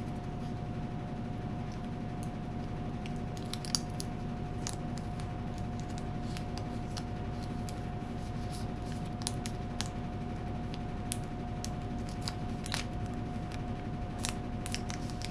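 Scattered small crackles and ticks of a paper decal backing sheet being handled and peeled away from vinyl letters, over a steady background hum with a faint constant tone.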